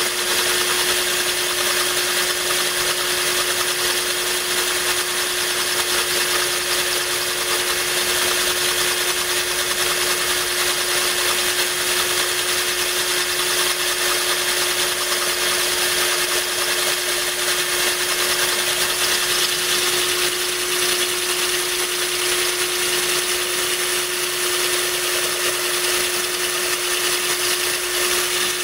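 Cordless drill running steadily with a core bit grinding a hole into a glass bottle, with water running onto the cut. The drill's motor gives a steady whine under an even grinding hiss.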